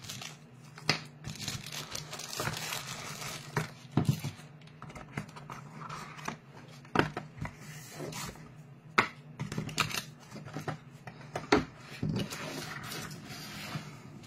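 Plastic film crinkling and cardboard packaging rustling and scraping as a small box is unpacked by hand, with irregular knocks and taps as pieces are lifted out and set down, over a low steady hum.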